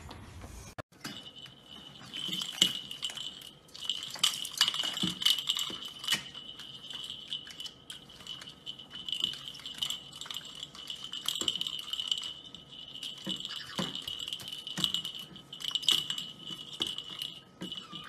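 A caique's hollow plastic ball toy rattling and jingling without a break as the bird hangs on it and swings it, with many small clicks and knocks. It starts about a second in.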